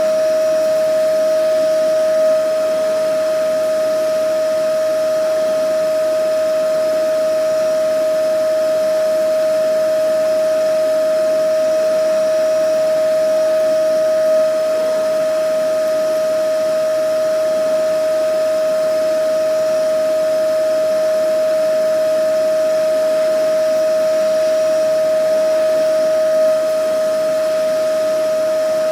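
Vacuum cleaner motor running steadily: a constant high whine over an even rush of air, swelling slightly about every twelve seconds.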